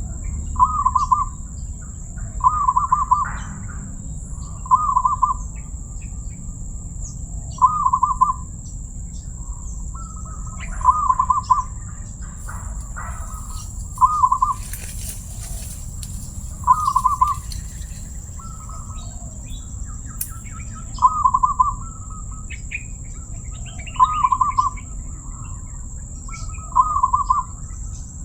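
Zebra dove (perkutut) cooing: short, rapid multi-note coo phrases repeated every two to three seconds.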